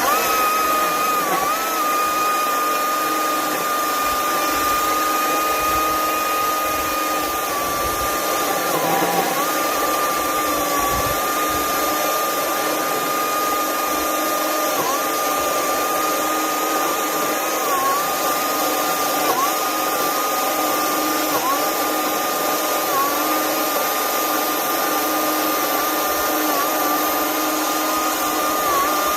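Stihl MSA 220 C battery chainsaw running flat out with a steady high electric whine, its pitch dipping briefly about ten times as the chain takes load.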